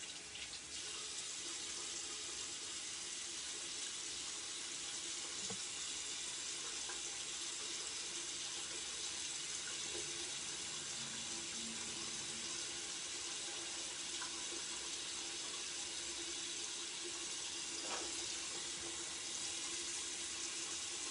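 Bathroom sink tap running steadily as a face mask is rinsed off with water.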